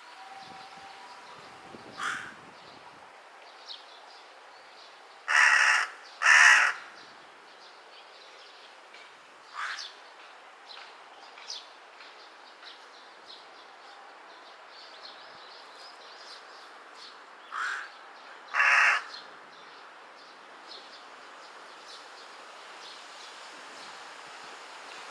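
Carrion crow caws: a lost juvenile calling for its parents. Two loud, long caws come about five to six seconds in and another pair near the end, with fainter calls in between.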